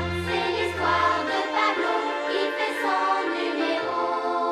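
Opening theme music of a cartoon, with voices singing over instruments. The bass drops out about a second and a half in, leaving held chords.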